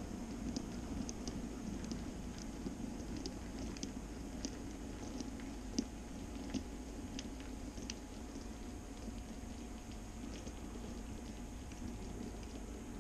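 N-scale model freight train running past, its wheels ticking irregularly over the rail joints over a steady low hum. The ticks thin out after about six seconds as the wagons clear, with a couple of small knocks around then.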